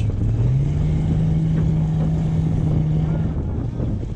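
Small dinghy's outboard motor running. Its hum steps up in pitch about half a second in, holds steady, then fades out near the end, under wind noise on the microphone.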